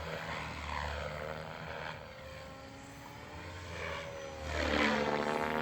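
Goblin 380 electric RC helicopter flying aerobatics, its rotor and motor whine sliding in pitch as it manoeuvres. It fades a little in the middle, then swells again about four and a half seconds in, its pitch dipping and rising back.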